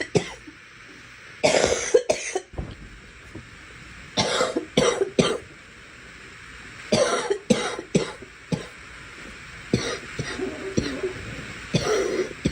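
A girl coughing in repeated fits of two to four coughs each, a new fit every two to three seconds, over a steady background hiss.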